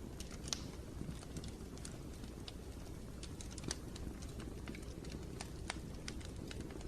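Wood fire crackling in a fireplace: irregular sharp pops and snaps over a steady low rumble of the flames, with louder pops about half a second in and just under four seconds in.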